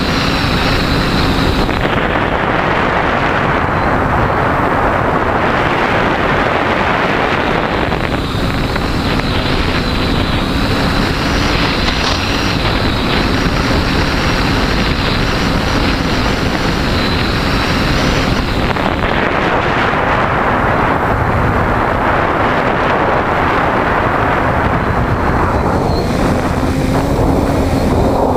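TBS Discovery quadcopter's motors and propellers buzzing, heard from the GoPro on board, with wind on the microphone. The motor sound shifts with the throttle several times and falls in pitch near the end.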